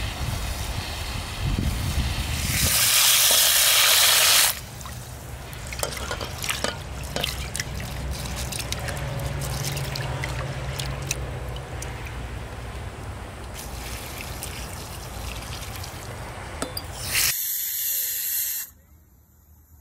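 Outdoor tap running into a stainless steel pot, gushing hard for a second or two, then rice being swished and rinsed by hand in the water with small splashes and clicks. Near the end, a short loud hiss of steam from a pressure cooker on a portable gas stove.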